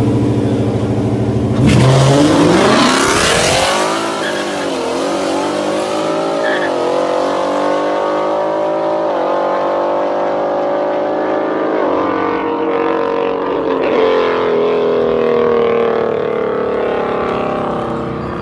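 A street-racing car's engine held at high revs, then launched with a sudden loud burst about two seconds in; its pitch sweeps up, then falls and climbs again several times as it shifts through the gears, the sound fading as the car pulls away.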